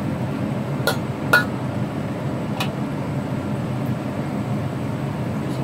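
Metal wok spatula clinking against an iron wok three times in the first few seconds, the second strike the loudest, as squid and napa cabbage are stir-fried, over a steady low rumble.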